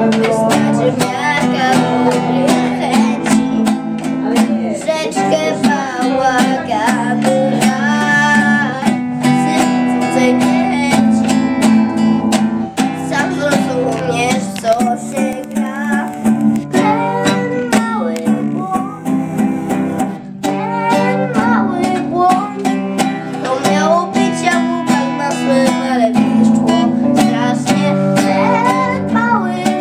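A boy strumming an acoustic guitar in a steady rhythm while singing a song.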